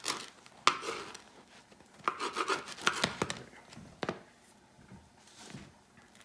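Bread knife sawing back and forth through a fresh bread-machine loaf, in two spells of rasping strokes, with a few sharp knocks.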